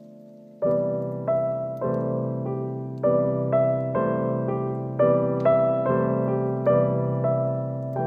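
Background piano music: a fading chord, then from about half a second in an even run of struck, decaying notes, about two a second.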